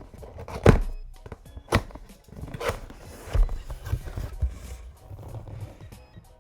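Several thuds and rustles of a cardboard keyboard box and its packaging being handled and opened, over background music.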